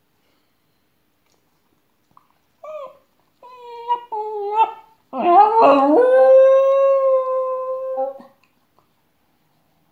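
Small dog howling as its owner goes out, a separation howl. A couple of seconds in come a few short whines, then one long, steady howl of about three seconds.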